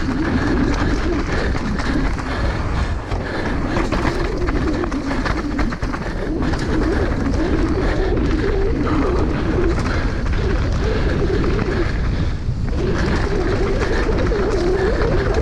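Downhill mountain bike ridden fast down a dirt track, heard from a camera on the rider: steady wind rumble on the microphone with a wavering tyre hum and frequent rattles and clatter from the bike.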